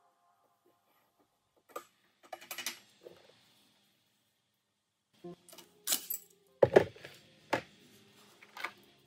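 Metal clinks and knocks of a steel rear sprocket and hub being slid onto and fitted to an ATV's rear axle. Scattered clicks at first, then a denser clatter from about five seconds in, with the heaviest knock about seven seconds in.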